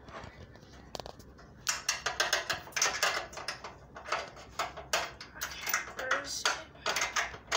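Irregular metallic clattering and clinking of hand tools and bolt hardware, starting about two seconds in and going on in quick uneven knocks.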